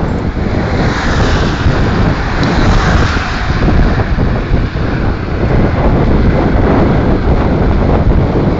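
Loud wind buffeting the microphone: strong wind rumbling and gusting over it while cycling along a road.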